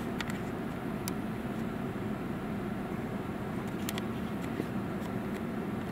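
Steady low rumbling background noise, with a few faint clicks scattered through it.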